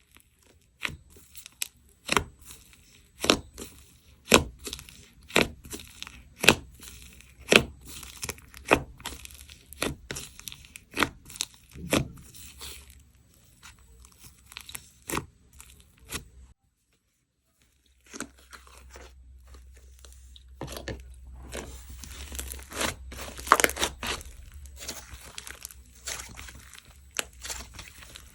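Fluffy butter slime handled by hand, making sharp sticky pops and clicks about once a second. After a short silent break past the middle, it gives a denser, continuous crackling and crinkling.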